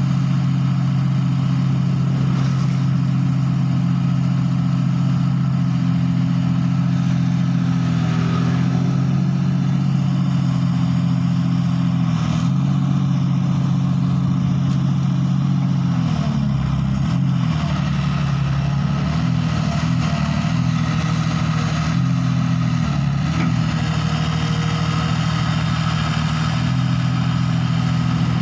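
Komatsu hydraulic excavator's diesel engine running continuously. Its pitch is steady at first, then dips and wavers repeatedly about halfway through as the hydraulics take load while the arm and bucket work the bogged machine in the mud.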